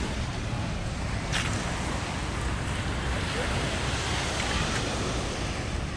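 Steady rush of ocean surf mixed with wind on the microphone, with faint voices in the background and a short click about a second and a half in.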